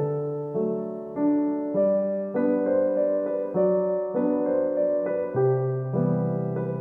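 Background music: a keyboard playing a slow, even run of piano-like notes and chords, a new note struck and fading about every half second.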